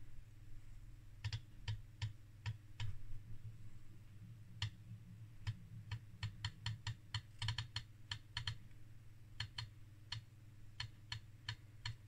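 About two dozen faint, sharp clicks at an irregular, typing-like pace, some in quick runs, over a faint steady low hum.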